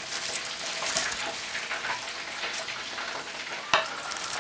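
Hot sauce with peppers and onions sizzling and crackling in a frying pan as fried chicken strips are tipped in and stirred through with a spatula, with one sharp knock about three and a half seconds in.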